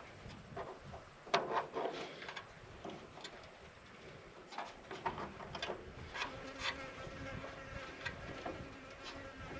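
Irregular metallic clicks and scrapes of hand tools working factory-type hose clamps onto radiator hoses, loudest about a second in. A steady low buzz joins in the second half.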